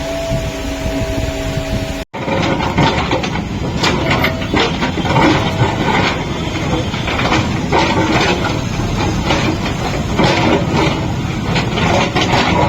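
JCB 3DX backhoe loader's diesel engine running steadily with wind on the microphone. About two seconds in the sound cuts out for an instant, and after that the engine is mixed with many short clattering knocks.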